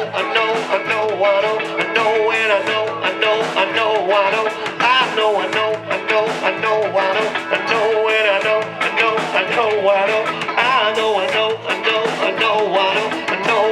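Live band playing a slow soul-rock song, a singer carrying a long repeated "I know" line over guitar and drums.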